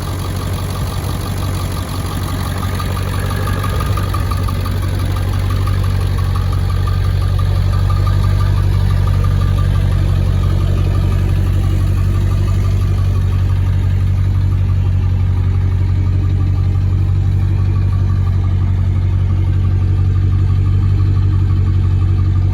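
Ford 7.3L Powerstroke turbo diesel V8 idling steadily through a 4.5-inch turbo-back exhaust, growing a little louder over the first several seconds and then holding steady.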